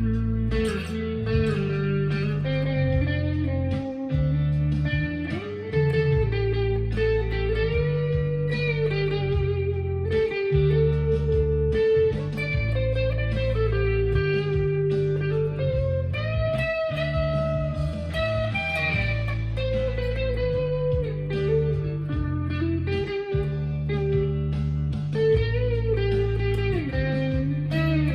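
Stagg SEL-STD electric guitar with its humbuckers split to single-coil, played through a Fender Mustang LT25 modelling amp: a lead line with bent notes over low notes that change every couple of seconds.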